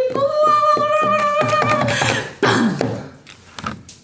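Short edited-in music sting: a held high note over a quick clicking beat, then a downward sliding tone about two and a half seconds in, fading away.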